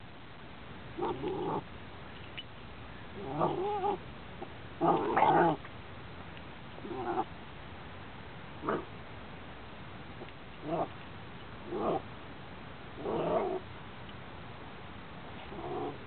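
Young Cairn Terrier vocalizing at a cicada: a string of about nine short, pitched calls, each under a second and spaced irregularly, the loudest about five seconds in.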